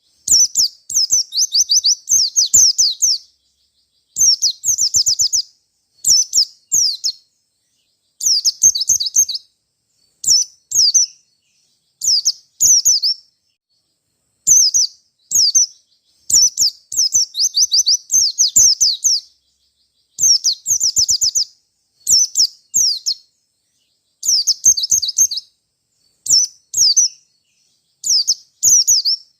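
Wild-caught white-eye (pleci) singing loudly in a fighting, rival-challenging style. It gives phrases of rapid, high, down-sweeping chattering notes, each one to two seconds long, separated by short pauses.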